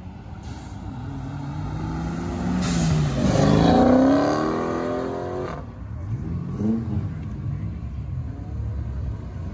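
A car engine revving hard as it accelerates away, its pitch and loudness climbing to a peak about four seconds in, then cutting off suddenly. A second, shorter climb in revs follows soon after, over a low rumble of other cars.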